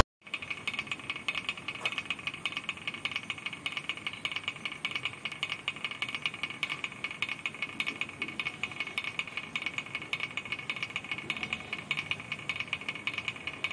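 Wooden pecking-chickens toy clattering as its hanging weight is swung, the chickens' heads knocking on the board in a fast, steady run of clicks.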